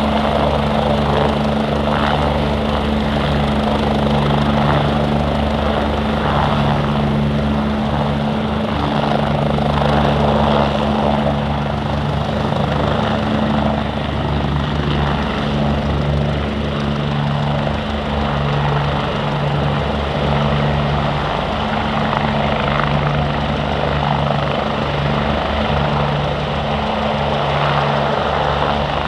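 MBB/Kawasaki BK117 twin-turbine helicopters running at a steady level: fast rotor chop underneath a constant turbine and gearbox whine, with no clear approach or fade.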